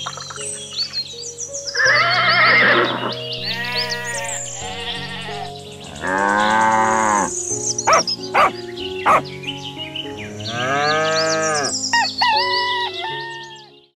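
Farm animals bleating several times, each call about a second long, with birds chirping, over background music that fades out near the end.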